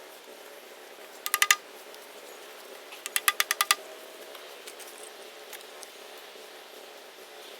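Pipe lengths and T-joint fittings being knocked together during assembly: a quick run of four sharp taps about a second in, then a faster run of about seven more around three seconds in.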